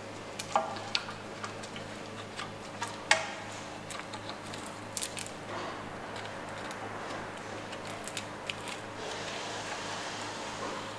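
Scattered light clicks and taps as a used rubber timing belt is slid by gloved hands over the toothed sprockets, tensioner and idler pulley of a Ford 1.8 TDCi diesel engine. The sharpest click comes about three seconds in, over a faint steady low hum.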